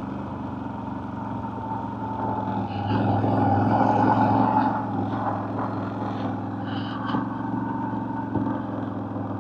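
CFMoto CForce 1000 ATV's V-twin engine running steadily, growing louder for a couple of seconds about three seconds in before settling again.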